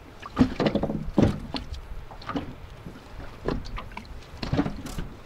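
Small waves slapping and knocking against the hull of an inflatable dinghy, a short splash about once a second.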